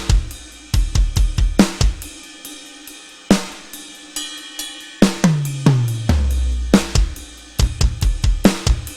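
Drum kit playing short fills: a run of tom strikes falling in pitch about five seconds in, quick clusters of snare and bass drum hits, and cymbal crashes ringing out.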